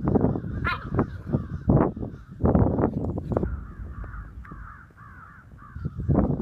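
Airedale puppies barking in short, rough bursts as they play. The barking comes thick and fast at first, quietens for a couple of seconds, then starts up again near the end.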